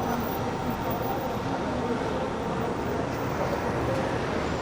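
Busy downtown street ambience: a steady din of traffic with people's voices chattering in the background.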